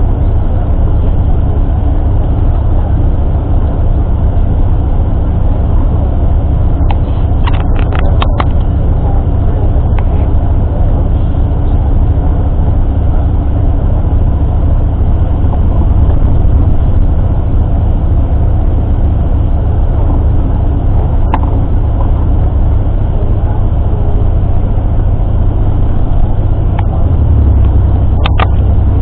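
Tour bus running, heard from inside the passenger cabin: a steady low engine and road rumble, with a few short clicks and knocks now and then.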